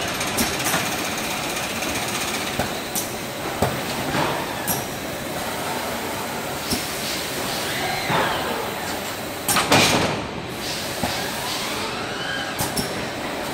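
Case-packing machine on a bottle line running steadily, with the clanks and knocks of its gripper head and conveyors as it loads 2-litre PET bottles into cases. There is one louder, rushing burst of noise about ten seconds in.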